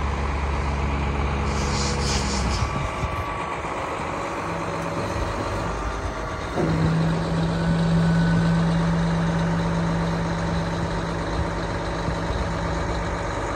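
A vehicle engine running steadily. A short hiss comes about two seconds in, the low engine note drops away soon after, and a steady hum sets in at about six and a half seconds.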